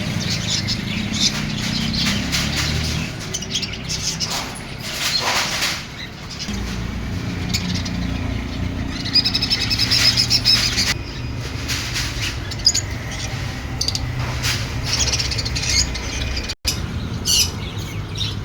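Many small birds chirping at once, with a steady low rumble underneath and a sudden cut in the sound near the end.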